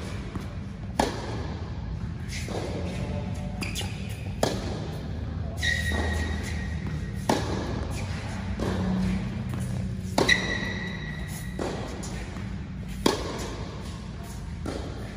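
Tennis balls struck by a racket and bouncing on a hard court, sharp hits every second or two that echo in a large indoor tennis hall, over background music.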